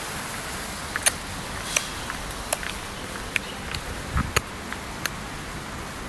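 Baby making clicking noises with his mouth: sharp, short clicks about every half second to second, around six distinct ones. A dull thump comes about four seconds in.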